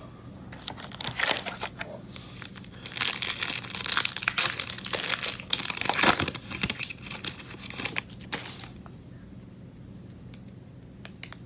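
A football card pack's wrapper being torn open and crinkled by hand, a dense crackling that is loudest in the middle and dies down after about eight and a half seconds, leaving a few light clicks.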